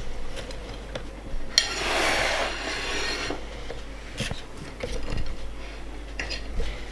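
Handling noises as a cinnamon roll is picked up and tasted: a rubbing, scraping sound lasting under two seconds, with light clicks and knocks around it.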